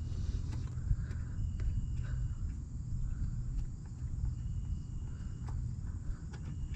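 Light metallic clicks and taps of a hand tool working on a truck's front brake caliper hardware, over a steady low outdoor rumble. A thin, high, held chirp comes and goes about every three seconds.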